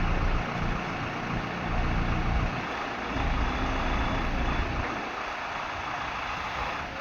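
Diesel engine of a Hyundai 140LC-9 hydraulic excavator working under load. Its low rumble swells and falls in several surges, then eases off about five seconds in.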